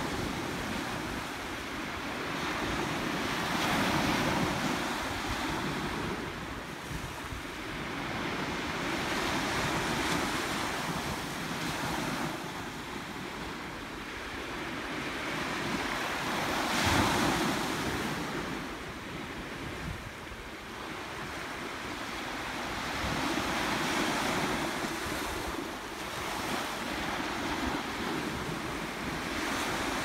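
Small waves breaking on a sandy beach and washing up the shore. The surf swells and fades every few seconds, with one louder break a little past the middle.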